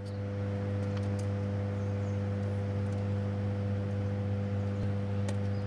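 Hydroelectric power station running: a steady low electrical hum with a stack of higher tones above it, over an even background rush.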